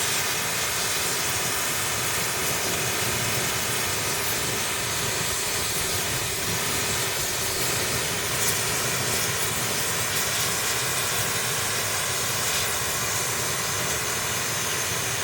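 Steady hissing roar of a clogged two-stroke silencer being burned out, with air forced into it so the unburnt oil and carbon inside burn off. It holds one even level with no change.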